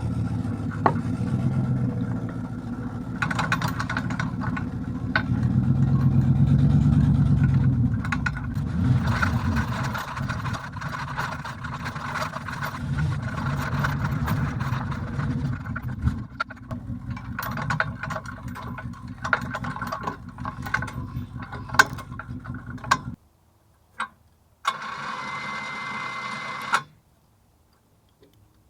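Pickup truck engine running as the truck tows a log arch with a log, with rattles and knocks over it, louder for a few seconds early on. It cuts off suddenly about three-quarters of the way through. A brief two-second noise with a steady high tone follows.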